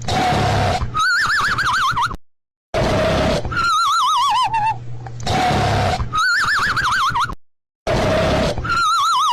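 Cartoon snoring sound effect on a loop: a noisy snore on the in-breath, then a wobbling whistle on the out-breath. The whistle falls in pitch on one breath and rises then falls on the next, and the pair repeats about every five seconds with a short silent gap.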